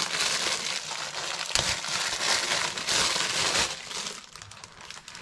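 Clear plastic packaging crinkling and rustling as a small bait bag is handled and pulled out of it. The crinkling is dense for the first three and a half seconds or so, then thins to a few softer rustles.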